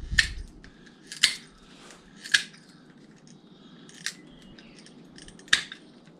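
Hand cutters snipping five times at irregular gaps of one to two seconds, trimming cable ties and spiky willow rod ends off the neck of a willow crab pot.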